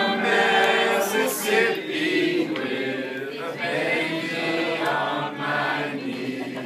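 A group of voices singing a song together, holding long notes, with the singing tapering off near the end.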